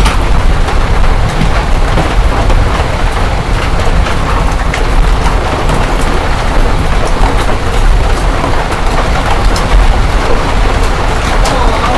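Heavy rain mixed with hail drumming on a roof: a loud, steady roar with scattered sharp hits of hailstones.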